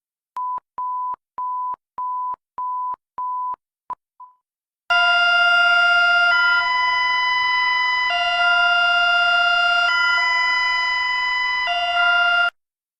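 Emergency alert alarm tones. First comes a string of short, even beeps at one pitch, about two a second, which stops about four seconds in. After a short gap a loud multi-tone alarm sounds, switching back and forth between two chords about every second and a half, and cuts off just before the end.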